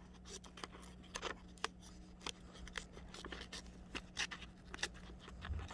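The small scissors of a Leatherman Wave Plus multitool snipping paper: a run of short, light snips and clicks at an irregular pace.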